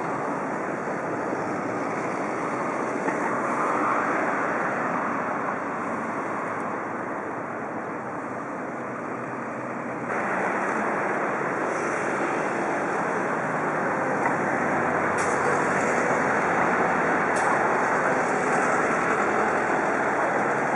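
Steady rushing outdoor noise of wind and distant traffic across a harbour, stepping up a little about halfway through.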